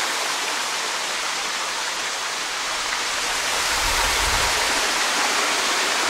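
Steady rush of a waterfall and the stream below it, an even hiss of falling and running water.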